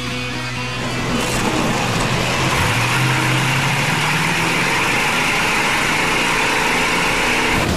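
Demolition derby car engine revving, rising in pitch over a couple of seconds, then running loud until it cuts off suddenly near the end.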